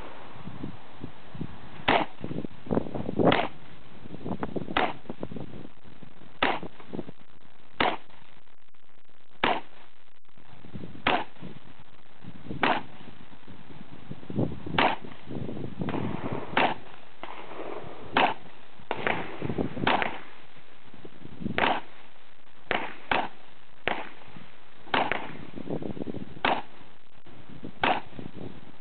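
Heckler & Koch USC carbine firing .45 ACP in slow, deliberate semi-automatic single shots, about twenty in all, one every second or so with a few short pauses, each crack followed by a brief echo.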